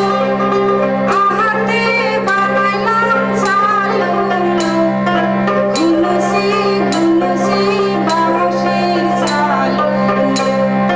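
A woman singing a Char-Chapori folk work song unaccompanied by other voices, her melody wavering in ornamented turns over a steady harmonium drone.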